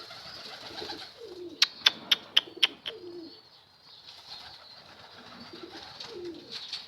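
Domestic pigeons cooing, low falling coos repeating every second or two. About one and a half seconds in comes a quick run of five sharp, loud claps, a little over a quarter second apart.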